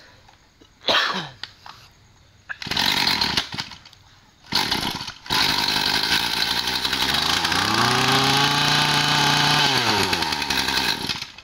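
Mitsubishi TLE27 two-stroke brush-cutter engine being pull-started. A few short pulls come in the first five seconds, and it catches about five seconds in and runs. It is revved up about two seconds later, held, then drops back and cuts off near the end.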